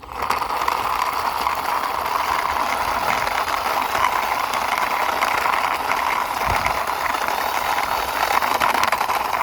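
Plastic toy excavator pushed along by hand, its wheels or tracks rolling and rattling steadily over the surface.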